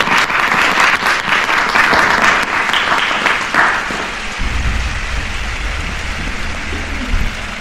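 Audience applauding a correct quiz answer. The clapping is loudest for the first three or four seconds, then thins out and fades.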